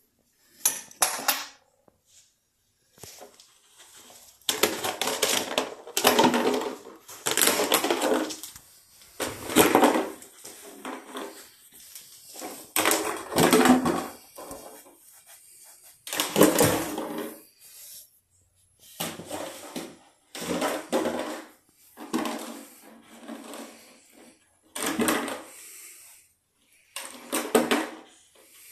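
Empty plastic water bottle crinkling and crackling as a puppy chews and pushes it around, in irregular bursts up to a couple of seconds long with short pauses between.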